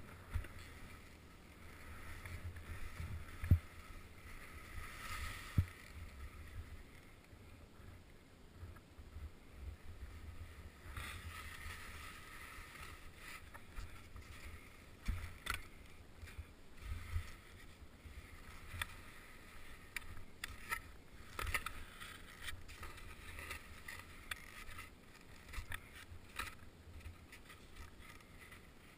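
Skis hissing and scraping through snow as the skier turns down a steep slope, heard through a head-mounted action camera, with low rumbling and a few sharp knocks, the loudest about three and a half and five and a half seconds in.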